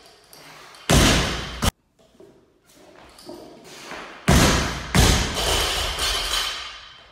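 A barbell loaded with 107 kg of bumper plates is dropped onto rubber gym flooring. There is a heavy thud about a second in that cuts off suddenly. Past the middle comes a drop that lands with a heavy thud, bounces into a second thud about half a second later, and leaves the bar's ringing fading away.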